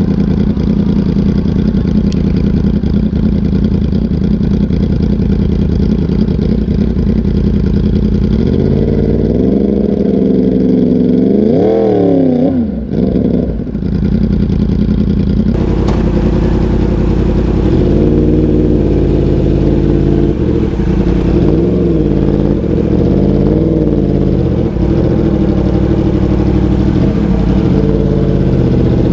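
Crossplane inline-four of a 2019 Yamaha R1 through an SC Project CRT titanium exhaust: running steadily at first, then revving up and down in sweeps from about nine seconds in, with a short drop around thirteen seconds. In the second half the revs rise and fall again and again.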